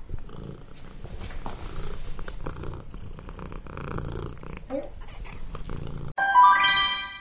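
A cat purring steadily. About six seconds in, the purring stops abruptly and a bright chime rings out and fades.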